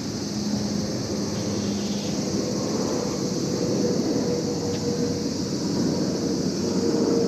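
Steady background drone with a low hum, like a distant engine, over an even high hiss.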